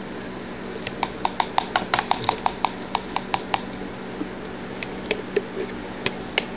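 A metal spoon clicking rapidly against the mayonnaise jar and the plastic cup as mayonnaise is scooped into the sauce, about five clinks a second for a couple of seconds, then a few scattered clicks.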